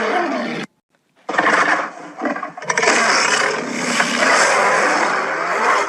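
Layered King Kong film roar sound effects: a short roar, a brief pause, then one long rough roar of about four and a half seconds.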